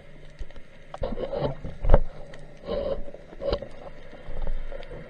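Underwater sound around a spearfisher: muffled knocks and rushes of water or bubbles as the diver moves, the loudest a sharp knock about two seconds in, over a faint scattered crackle of clicks.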